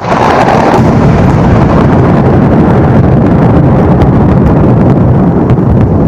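A loud thunderclap: a sudden sharp crack, then a long, heavy rumble that stays loud, with rain hiss underneath.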